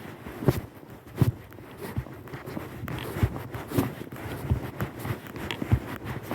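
A horse's hooves striking the ground at a walk: an uneven run of dull thuds, roughly one or two a second, some with sharp clicks.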